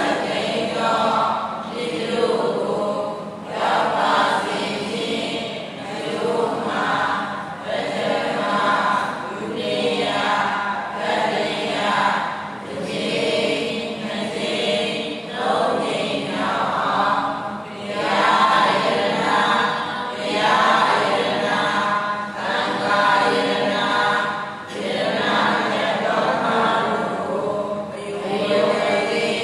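Buddhist chanting: voices reciting in a continuous sing-song chant, phrase after phrase with short breaks for breath.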